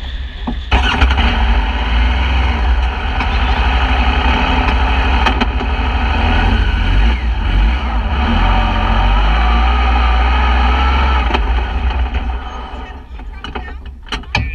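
Off-road vehicle engine running loudly close by. It comes in suddenly about a second in, holds steady, and dies away near the end.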